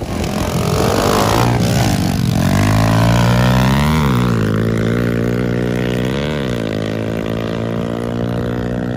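Dirt bike engine running close by, its pitch sweeping in the first couple of seconds, then holding steady with two quick blips of the throttle.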